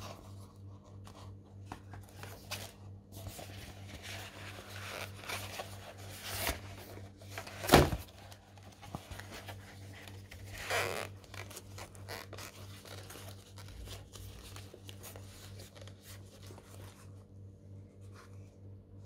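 Handling noise from a padded fabric carrying case as a portable CD player is fitted into it: rustling and scraping, with one sharp knock about eight seconds in and a smaller rustle a few seconds later. A steady low hum runs underneath.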